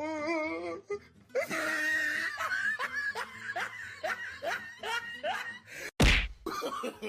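A person laughing hard in a run of short rising "ha" sounds, about two a second, after a wavering cry at the start. A loud thump about six seconds in is the loudest sound.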